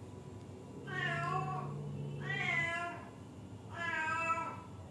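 Kitten meowing three times, each meow under a second long.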